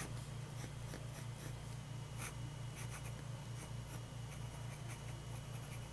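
Sailor Compass fountain pen's steel medium-fine nib scratching faintly across paper in a run of short strokes, over a low steady hum.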